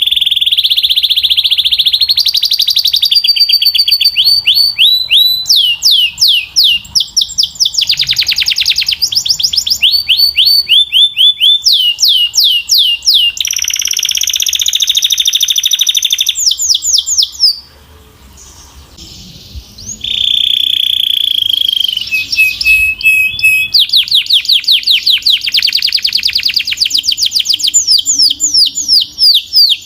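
Canary singing a loud song of rapid trills: fast runs of repeated sweeping notes alternating with held buzzy tones, with a break of about two seconds a little past the middle.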